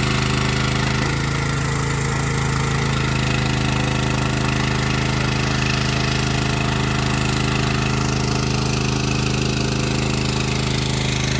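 A small engine running steadily at idle, its tone shifting slightly about a second in.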